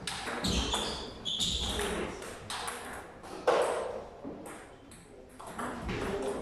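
Table tennis ball being struck by rubber bats and bouncing on the table during a doubles rally: a string of short, sharp clicks at an uneven pace, the loudest about three and a half seconds in.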